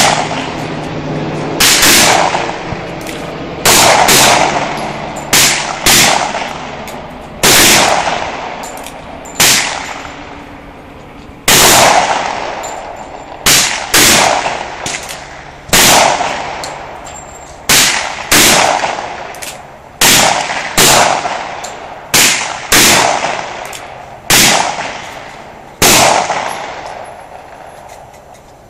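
Handgun shots fired with reloaded .40 caliber and .357 Magnum ammunition, about twenty in all, singly and now and then in quick pairs, each with a ringing echo that dies away over about a second.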